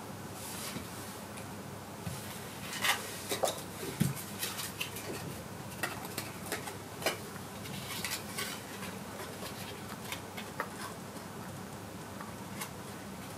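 Playing cards being handled and set down on the floor: irregular light clicks and taps, thickest in the first half and sparser after.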